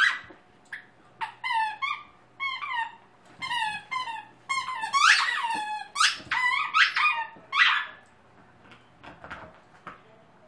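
Dog's squeaky toy squeaking over and over as the dog bites and squeezes it: a quick run of short, shrill squeaks, several dropping in pitch. They stop about eight seconds in, leaving a few faint knocks.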